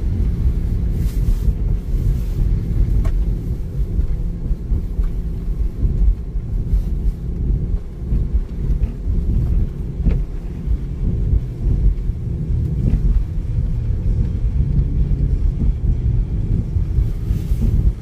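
Car driving on a wet road: a steady low rumble of tyres and engine.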